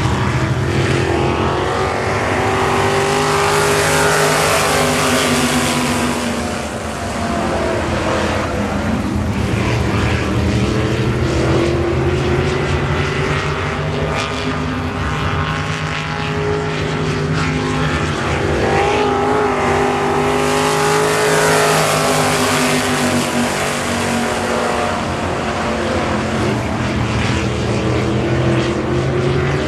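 A pack of IMCA 305 sprint cars' small-block V8 engines running at race speed, several engines heard together. The engine pitch swells and falls as the cars come past, loudest about four seconds in and again about twenty-one seconds in.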